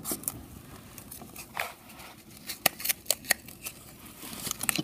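A folded paper toy pizza box being opened by hand: a string of light paper rustles and small sharp clicks.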